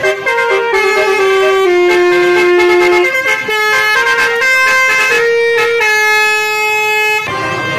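Telolet basuri multi-tone horn playing a tune of held notes that step up and down in pitch, cut off suddenly about seven seconds in as other music begins.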